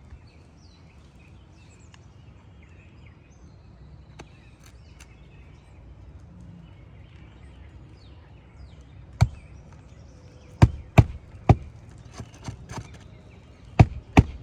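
Hammer driving roofing nails into asphalt shingles: a run of sharp, loud blows starting about nine seconds in, unevenly spaced, about six strong strikes with a few lighter taps between them.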